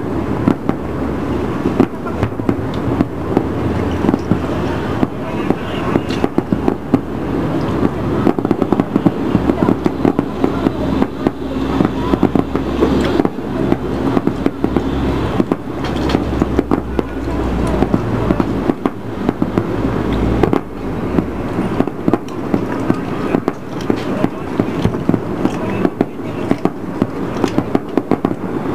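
Fireworks going off: a dense, continuous run of sharp pops and bangs, several a second.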